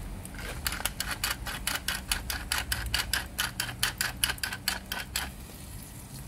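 Hand-held wooden pepper mill grinding pepper onto grilling seafood: a quick, even run of ratcheting clicks, about five or six a second, that stops about five seconds in.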